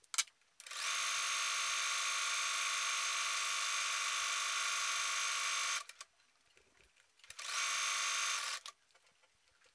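Bernette Sew and Go 8 computerised sewing machine running steadily for about five seconds while stitching a lightning stitch along a curved seam in knit fabric. It stops, then runs again for about a second near the end.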